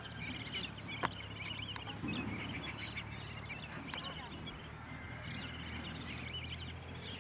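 A flock of lesser whistling ducks calling: many short, high whistles overlapping one another, thinning out for a moment past the middle and picking up again near the end. A sharp click about a second in, over a steady low hum.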